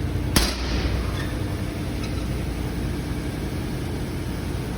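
Steady low background rumble with a faint hum, broken about half a second in by a single sharp bang.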